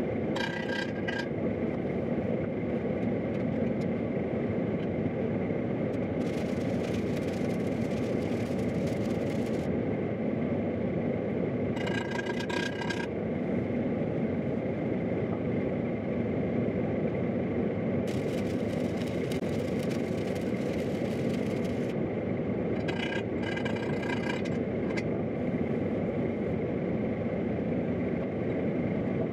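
Steady roar of a forced-air torpedo heater, broken by several bursts of welding-arc hiss and crackle as fittings are welded onto a steel pipe. Each burst lasts from about one to four seconds.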